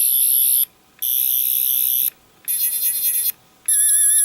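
Toy 10th Doctor sonic screwdriver's electronic sound effect from its small built-in speaker: a high, warbling buzz played in four bursts of about a second each with short gaps between, the last bursts wobbling up and down in pitch.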